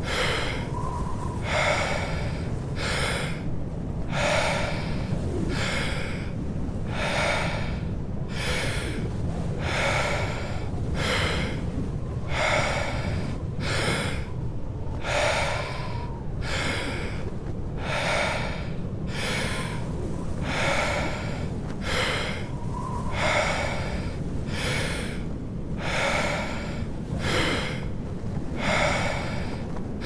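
Deep, fast in-and-out breathing in an even rhythm: the power-breathing phase of a Wim Hof round. Beneath it is a steady low rumble of storm wind.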